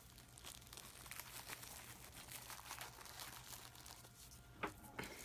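Faint crinkling and rustling of packaging being handled, with two sharper clicks about four and a half and five seconds in.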